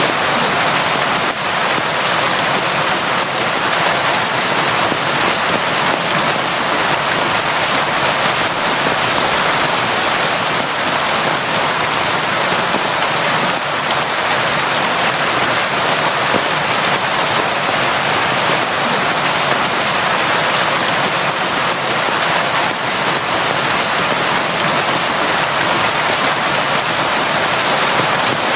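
Steady, constant rain falling on surfaces, a dense even hiss of drops.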